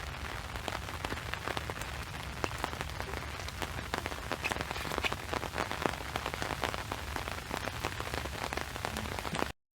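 Heavy rain falling, with many individual drops striking close by as sharp ticks over a steady hiss and a low rumble. It cuts off abruptly near the end.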